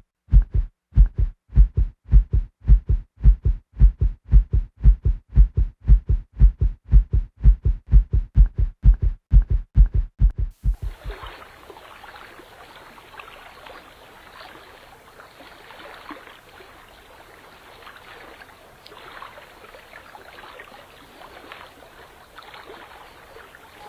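Heartbeat sound effect: a steady run of deep, low thumps at roughly two a second that stops about eleven seconds in. A faint hiss with soft crackles follows.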